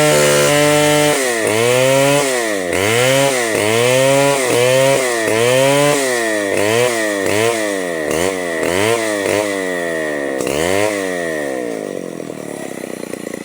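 Chainsaw cutting into hard mahogany, its engine note dragging down under load and climbing back over and over as the cut works, the dips coming quicker toward the end. A little before the end the load comes off and the engine settles to a lower, steadier idle.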